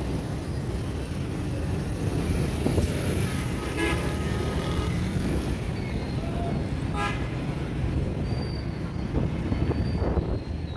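Busy city street traffic: a steady rumble of engines and road noise, with two short vehicle horn honks about four and seven seconds in.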